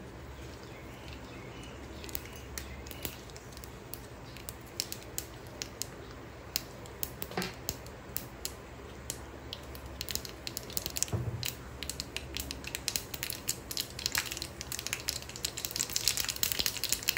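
Mustard seeds popping and spluttering in hot oil in a small aluminium tempering pan, over a steady sizzle. The sharp pops begin about two seconds in and come faster and louder toward the end. They show the oil is hot enough, and the tempering is ready for the dried chillies and asafoetida once the seeds have fully burst.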